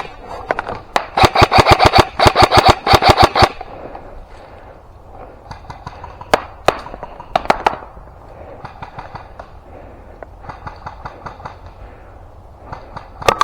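Airsoft guns firing: a rapid full-auto burst of sharp cracks starting about a second in and lasting a couple of seconds, then scattered single shots and fainter, more distant bursts.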